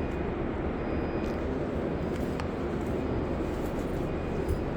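Underground station passage ambience: a steady low rumble of background noise with a few faint clicks.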